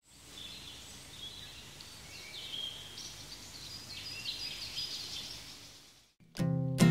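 Birds chirping over a low steady background noise, fading out near the end. Strummed acoustic guitar music starts just before the end.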